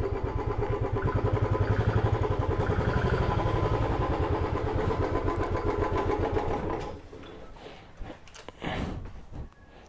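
Motorcycle engine idling with an even, pulsing beat, then switched off about seven seconds in; a few light knocks follow.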